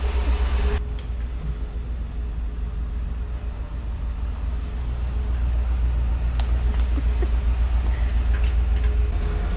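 GMC Sierra pickup truck's engine running at low speed as the truck reverses slowly: a steady low rumble.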